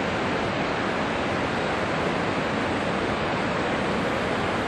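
Steady rushing of river whitewater, water pouring through rapids below a low diversion dam, as an even, unbroken wash.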